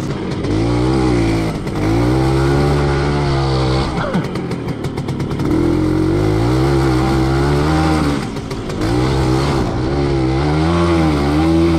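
WSK two-stroke single-cylinder motorcycle engine running under way, its revs climbing and easing off several times: it picks up about a second in, drops back near four seconds, climbs again, dips briefly past eight seconds and rises once more near the end.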